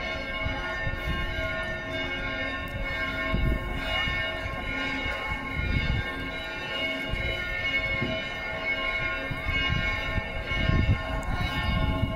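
Church bells pealing: a dense, steady ringing of many tones at once that swells and fades, over an irregular low rumble.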